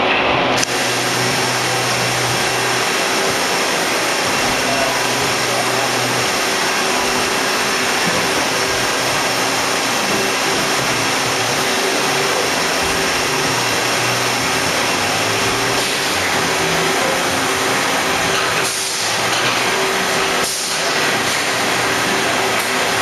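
2006 Hardinge Elite II-8/51 CNC lathe running under power and cutting parts: a loud, steady wash of machine noise with a constant hum. The noise thickens about half a second in and dips briefly twice near the end.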